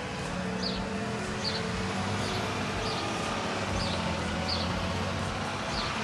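Distant road traffic: a vehicle engine running steadily, with a bird's short chirp repeating at regular intervals.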